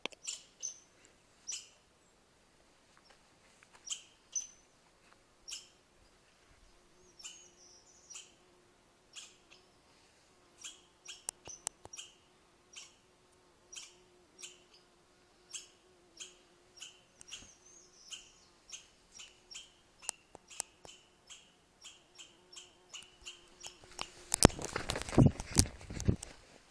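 A chipmunk giving its repeated sharp chip calls, short high chirps about one a second at first and quickening to two or three a second later on. Near the end a loud burst of noise lasts a couple of seconds.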